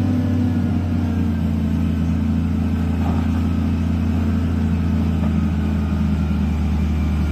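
SDLG motor grader's diesel engine running steadily with a low, even drone as the machine drives toward the microphone.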